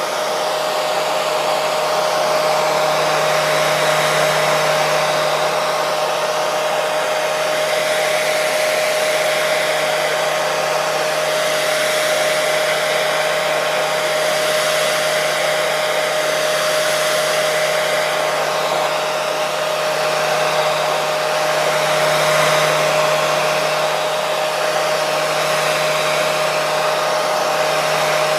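Hair dryer blowing steadily, a continuous whooshing rush of air with a steady motor whine, used as white noise to soothe a baby to sleep.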